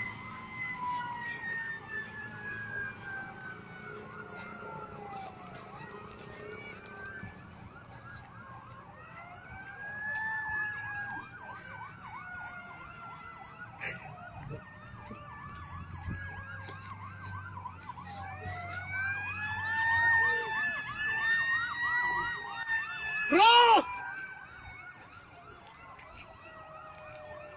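Several emergency-vehicle sirens wailing at once, their pitches slowly rising and falling and overlapping. About twenty-three seconds in there is one short, loud blast.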